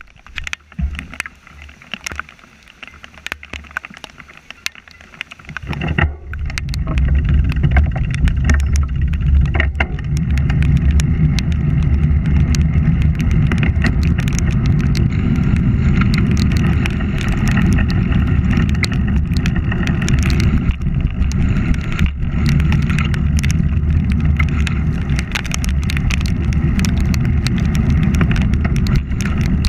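Wind rushing over the microphone of a camera riding along on a bicycle. It comes in loud about six seconds in and then holds steady, with many sharp ticks on top.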